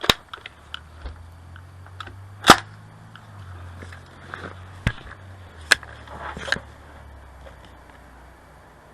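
A single sharp rifle shot about two and a half seconds in, followed by a few fainter sharp clicks or knocks.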